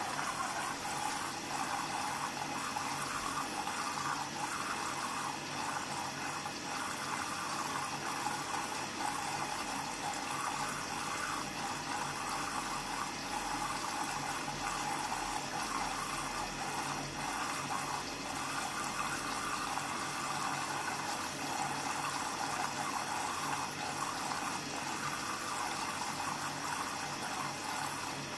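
Hoover washing machine taking in water for its final rinse: a steady rush of water through the inlet and detergent drawer, carrying the fabric softener into the drum.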